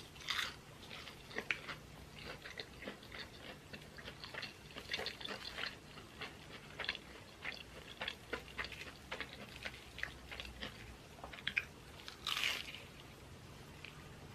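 Close-miked eating: a person chewing food, with many small mouth clicks a few times a second and louder bursts right at the start and about twelve seconds in.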